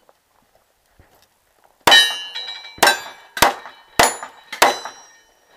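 Five revolver shots, the first two about a second apart and the rest quicker, each followed by a short metallic ring of steel targets being hit.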